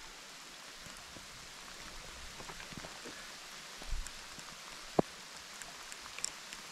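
Steady rain falling, an even hiss scattered with small ticks. A soft low thump comes about four seconds in, and a single sharp click, the loudest sound, about a second later.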